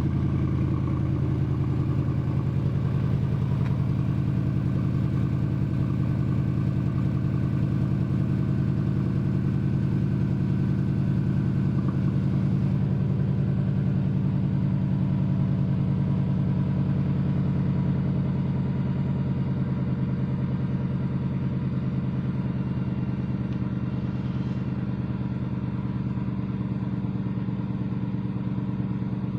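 An engine idling steadily, a loud, even low running sound with a fast regular pulse that eases off slightly about two-thirds of the way in.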